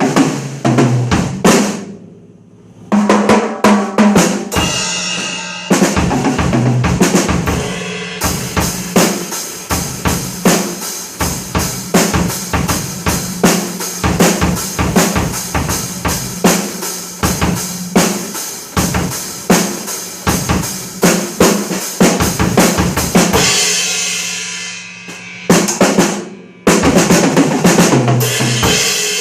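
Roland electronic drum kit being played: bass drum, snare and rimshot hits in beats and fills. A long middle stretch of fast, evenly spaced strikes is broken by short pauses about two seconds in and near the end.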